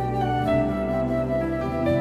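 Instrumental background music: a melody of long held notes over a sustained low bass note.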